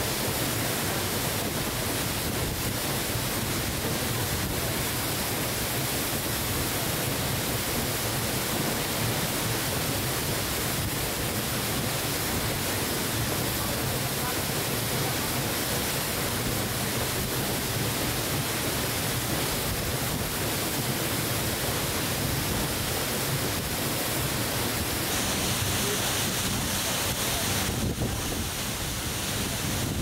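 Steady rush of falling water from Tiger Falls, an even noise without break.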